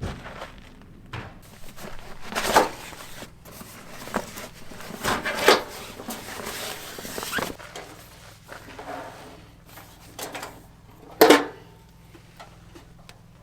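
Camp gear being handled and unpacked: scattered rustling and clattering, with sharper knocks about two and a half, five and a half, and eleven seconds in.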